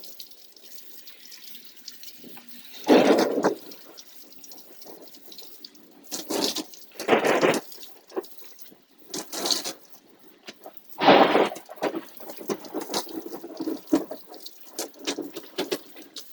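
Rain dripping and pattering, broken by about five crunchy, crackling bursts on the phone's microphone, each under a second long and a few seconds apart. The uploader believes the crunchy noise is generated in the phone by nearby lightning.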